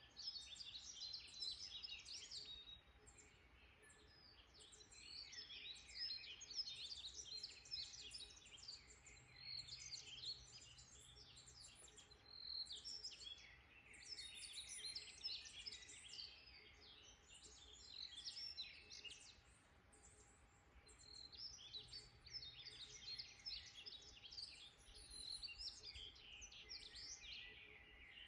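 Songbirds chirping in woodland: rapid, high-pitched chirps and trills come in bursts of several seconds, with brief lulls between them.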